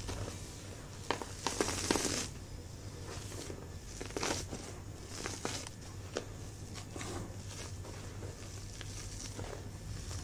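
Hands crushing and pressing into powdered gym chalk, the clumps crunching and crumbling. There is a run of sharper crunches about one to two seconds in, then softer, scattered crackling.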